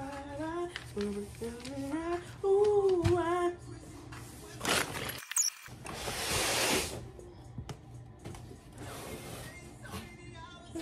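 Background music with a singing voice for the first few seconds, then loud rustling and scraping of cardboard packaging as a white flat-pack furniture panel is pulled from its box, twice, with softer rustling after.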